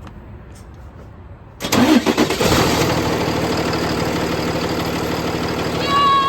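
Cummins ISB 6.7 L inline-six turbodiesel cranked and firing up about a second and a half in, then idling steadily, after its exhaust manifold and turbo gaskets have been replaced. A high steady whistle-like tone comes in near the end.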